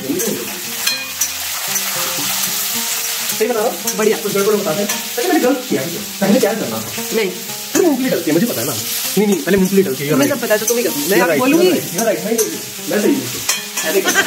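Chopped onions and peanuts sizzling in hot oil in a stainless steel kadai while a steel spatula stirs and scrapes them around the pan, with a wavering pitched sound running underneath.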